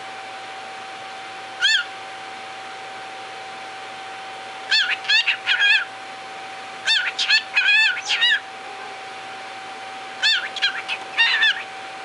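Cockatiel chattering in short whistled chirps: a single chirp about two seconds in, then three quick bursts of several chirps each. A steady faint hum runs underneath.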